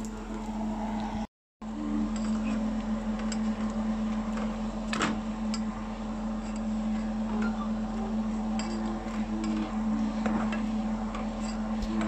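Kitchen cooking sounds: a steady low hum, with a few light clinks of a spatula against a pot of squid on the stove. The sound cuts out for a moment about a second in.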